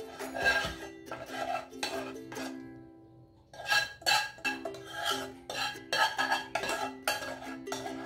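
Metal spoon scraping and pressing cooked berry purée through a stainless steel mesh sieve, with the pot knocking against the rim, in repeated strokes about twice a second and a short pause a little after three seconds in. Light ukulele background music plays underneath.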